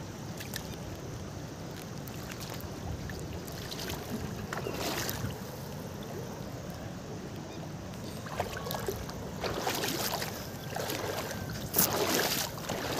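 River water rushing steadily past the microphone, with a few louder splashes about five seconds in, around ten seconds and near the end.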